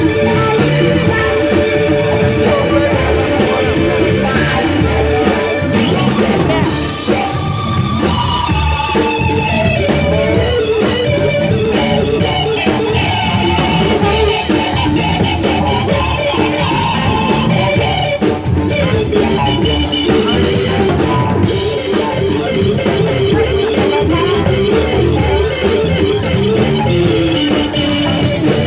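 Live blues band playing an instrumental passage: electric guitar, electric keyboard and drum kit over a steady beat.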